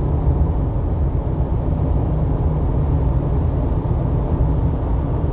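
Steady road and engine noise heard inside a car's cabin while driving, a low even rumble.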